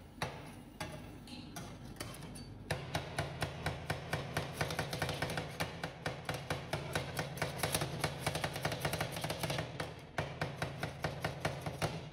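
Steel scraper blade chopping fruit on a stainless steel ice cream cold plate: rapid metallic taps, a few scattered ones at first, then a dense fast run from about three seconds in.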